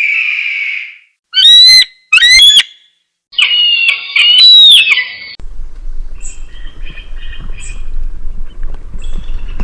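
Eagle screeches from a sound-effect compilation: a hoarse cry, two loud piercing screeches, then a longer screech. About five seconds in, a quieter recording follows, with faint chirping calls over a low outdoor rumble.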